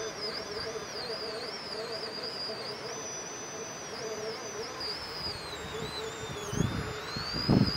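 Electric motor and drivetrain of an RC rock crawler whining as it crawls over rock, the high whine wavering up and down with the throttle over a steady lower hum. Near the end come a few loud low thumps.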